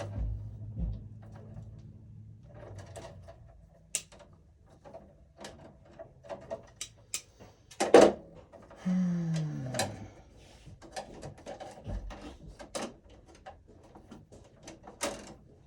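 Irregular clicks and knocks of hand tools and electrical wire being handled at a breaker panel, with one sharp snap about eight seconds in and a short falling hum just after it.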